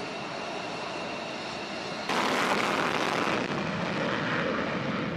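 F-15 fighter's twin jet engines running at taxi with a steady high whine. About two seconds in, there is an abrupt change to a much louder, harsher rush of an F-15 taking off on full afterburner, which eases a little near the end.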